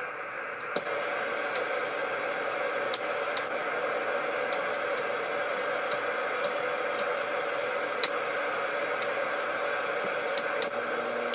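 CPI CP300 CB radio's receiver hissing steadily through its speaker on a quiet band with no stations heard. Over the hiss come about a dozen sharp clicks at uneven intervals, roughly one a second, as the channel selector is clicked from channel to channel.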